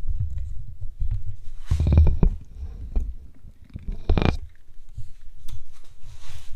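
Handling noise close to the microphone as a small part is fitted to a bicycle: a low rumbling with two brief rubbing squeaks, about two and four seconds in.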